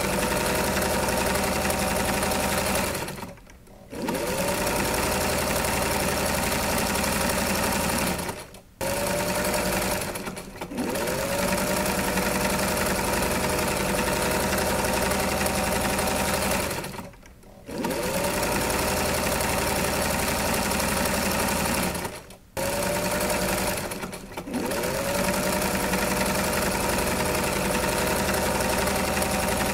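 Sewing machine stitching in steady runs of several seconds, stopping briefly about six times; each time it restarts, its motor whine climbs back up to speed.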